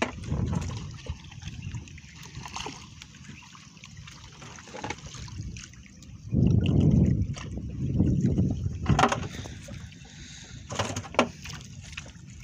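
Seawater sloshing and splashing against the side of a small outrigger boat as a fishing net is hauled in, with two heavier surges in the middle. A few sharp knocks follow near the end.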